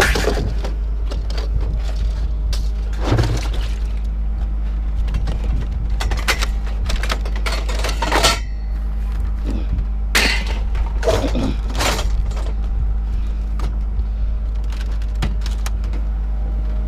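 Irregular clatter and crashes of scrap metal being thrown and dropped during unloading, a few loud crashes spread out with quieter rattling between, over a steady low rumble.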